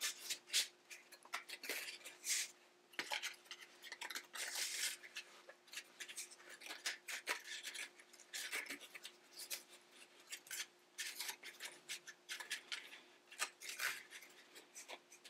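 Flat rattan reed scraping and crackling as it is woven in and out between a basket's reed spokes: irregular short scratchy sounds.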